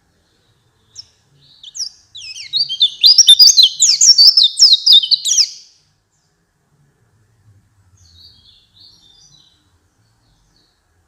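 White-eye (pleci) singing a fast, loud warbling phrase of rapid high falling notes lasting about three and a half seconds, followed a couple of seconds later by a few soft chirps. It is the kind of lively song used to lure captive white-eyes into singing.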